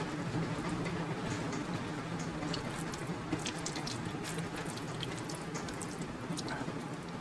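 Close-up eating sounds: chewing a bite of boiled egg, then fingers squishing and mixing soft, starchy ghee rice on a steel plate, with many small wet clicks. A faint steady hum and hiss lie underneath.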